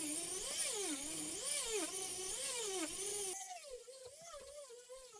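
A small high-speed electric motor tool whining, its pitch rising and falling again and again as the load on it changes. About three and a half seconds in, the whine steadies and fades away.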